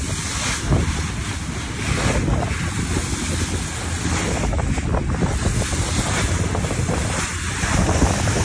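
A boat running fast over open sea: wind buffets the microphone over the rush of water and spray off the hull, as a steady, dense noise.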